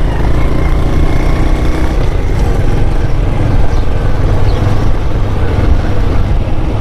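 Moving vehicle running along a road, a steady engine and road noise with heavy wind rumble on the microphone.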